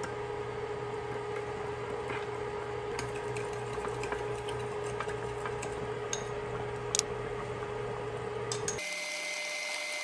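Steady electrical appliance hum with a few light clicks. Near the end it cuts off abruptly and a high steady electronic tone sounds for about two seconds.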